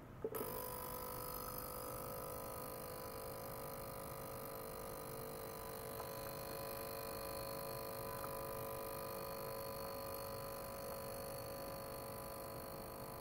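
A 42 kHz ultrasonic cleaner running with its tank of water, giving a steady high hiss from cavitation with several steady whining tones over it. It switches on suddenly just after the start.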